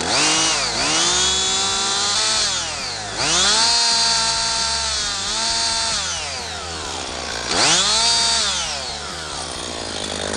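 Husqvarna 55 two-stroke chainsaw revved hard three times. Each rev holds at high speed for a second or two and then falls back toward idle, and the engine settles low near the end. The chain is being run fast to check that the bar is getting its oil.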